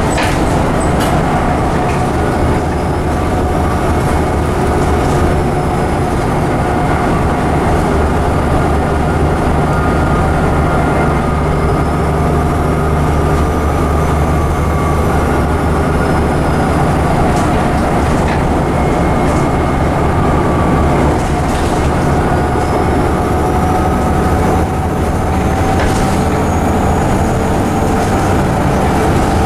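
Volvo B7TL double-decker bus under way, heard from inside the passenger saloon: its seven-litre six-cylinder diesel engine running steadily with a transmission whine, the engine note shifting a little past the middle, and a few short rattles from the body.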